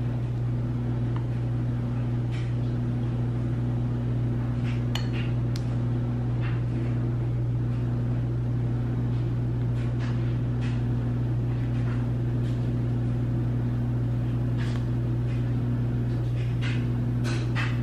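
A steady low hum runs throughout, with a weaker higher tone in it that keeps dropping out and coming back, and a few faint light clicks and taps scattered through it.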